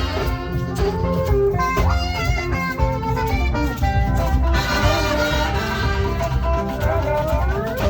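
Music: a saxophone playing a melody over a backing track with bass, its notes sliding upward near the end.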